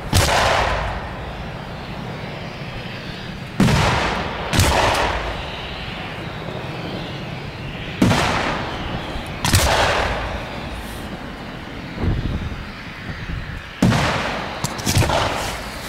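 Aerial firework shells bursting overhead: loud bangs in pairs about a second apart, roughly every four seconds, each one trailing off in a fading rumble.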